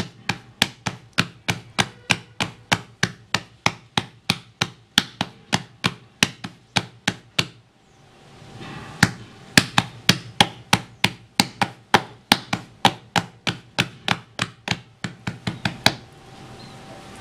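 Palms patting pearl millet (bajra) dough flat on a board to make a thin hand-patted roti, a quick even run of soft slaps about three a second. The pats break off briefly about halfway through, pick up again, and stop just before the end.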